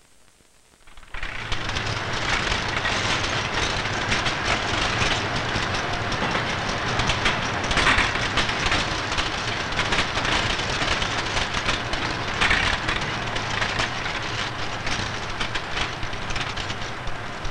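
Linotype typesetting machine running: a dense, rapid clatter of clicks over a low steady hum, starting abruptly about a second in.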